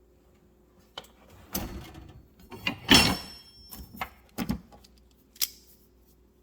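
Metal tools clanking and rattling in a steel toolbox drawer as they are handled, with a series of knocks and one loud clank about three seconds in that rings briefly.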